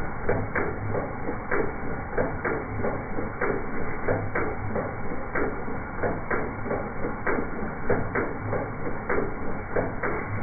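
1978 Datsun 280Z's straight-six engine running with an uneven misfire, an irregular knock or stumble roughly once a second over the running. The misfire comes from a sloppy, worn valvetrain.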